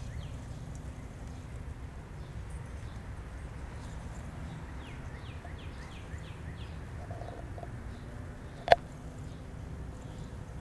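Outdoor ambience: small birds chirping again and again in short falling notes over a steady low rumble, with one brief sharp click about nine seconds in.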